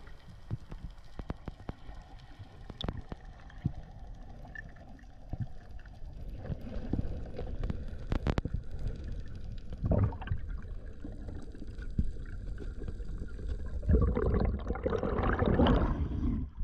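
Water rushing and gurgling around an underwater camera as a freediver swims up from the bottom, with scattered sharp clicks. It grows louder about six seconds in and ends in splashing as the camera breaks the surface near the end.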